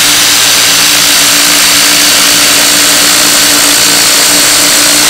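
Two Ryobi 18V cordless impact drivers, a P263 with a 3/8-inch anvil and a P236 with a 1/4-inch hex, hammering together at full speed as they drive long screws into a wooden log round. Loud and steady.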